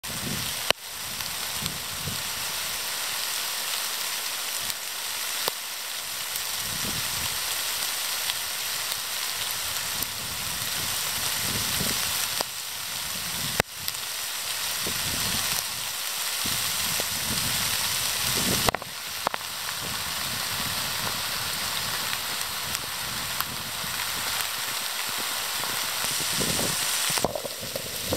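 Steady hiss of rain falling, with scattered faint low thuds. Near the end a galloping horse passes close, its hoofbeats coming through as uneven thumps.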